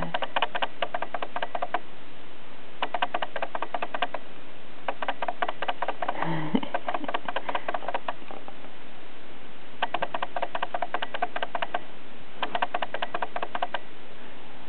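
An 11-month-old part-Turkish Angora cat purring close up while it is stroked. The purr comes in runs of one to two seconds with short breaks between breaths, and there is one brief low voiced sound about six seconds in.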